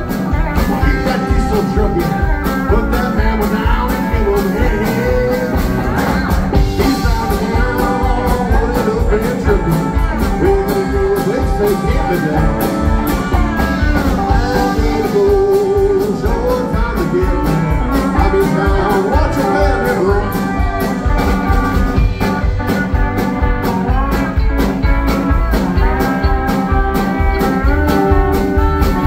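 A live band playing with electric guitar, upright double bass, drums and pedal steel guitar, at a steady beat with some gliding notes.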